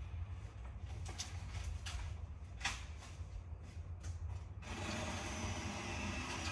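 Dry branches and twigs cracking and snapping as brush is pulled and handled, with several separate sharp cracks through the first four and a half seconds. A steady hiss comes in near the end.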